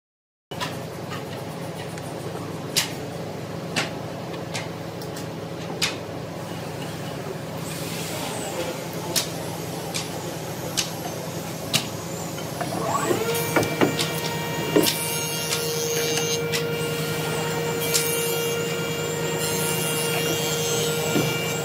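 Woodworking machinery running with a steady hum and sharp knocks about once a second; about thirteen seconds in, a steady high-pitched motor whine starts and holds.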